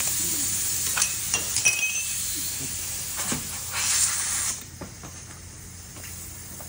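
Compressed air hissing from an air hose into a tractor tire as it is inflated, with a few light metallic clinks; the hiss cuts off about four and a half seconds in.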